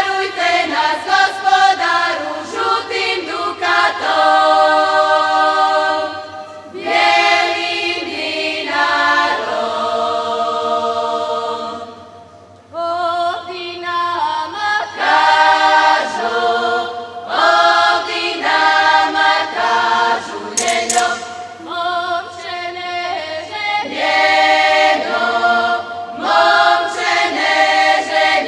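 Women's folk choir singing a traditional Croatian song a cappella, several voices together in long held phrases, with a short pause about six seconds in and a longer one about twelve seconds in.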